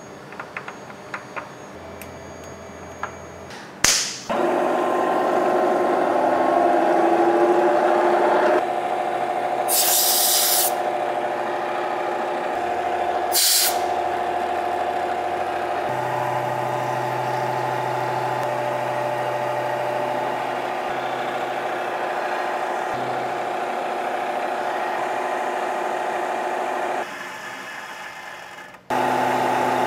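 Milling machine spindle running and cutting an aluminium block with an end mill and then a drill: a steady machine whine with several held tones that starts about four seconds in, after a few light clicks. Twice in the middle a short loud hiss cuts in.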